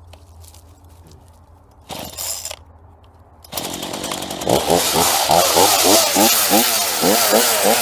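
Gasoline chainsaw: a short burst of engine noise about two seconds in, then the saw runs up to full throttle about three and a half seconds in, loud, its pitch wavering up and down rapidly.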